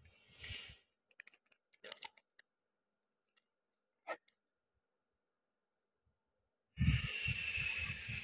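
Clear plastic packaging crinkling and rustling as it is handled, with a few light clicks and one short rustle, then a pause of near silence, then louder crinkling with low thumps near the end as the packaging is worked again.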